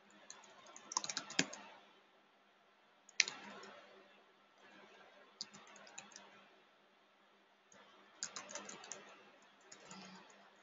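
Typing on a computer keyboard in about five short bursts of keystrokes with pauses between them.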